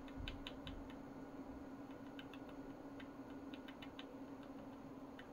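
Faint clicks of computer keyboard keys pressed in short runs of a few at a time, over a steady low hum.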